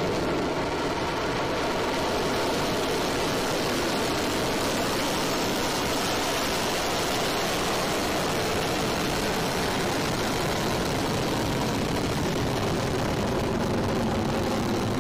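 Long March 3B/E rocket's engines firing through ignition and liftoff: loud, steady exhaust noise.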